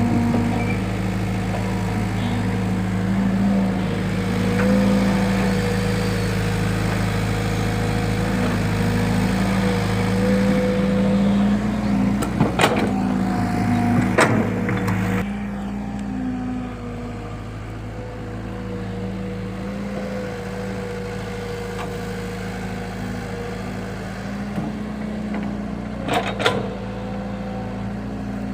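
Excavator diesel engine running steadily, with a few sharp knocks around the middle and again near the end; the engine eases off a little about halfway through.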